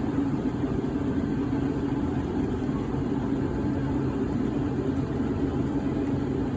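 HO scale model train with a Russell snowplow running steadily along the track: a continuous mechanical hum and rumble of motor and wheels on rail, with no change in speed.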